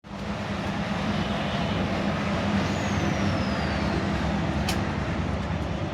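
Steady low hum with a hiss, and one faint whistle falling slowly in pitch around the middle, then a short click near the end.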